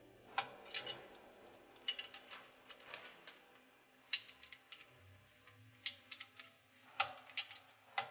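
Irregular sharp metallic clicks and clinks, in small clusters, from a wrench and other hand tools being handled against the steel nuts and fittings while a submersible pump is fitted to its motor.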